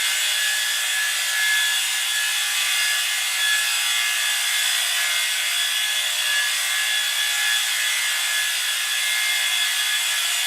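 Designed sci-fi electric-field sound effect: a harsh, steady electric buzz with several high tones held over a rasping hiss.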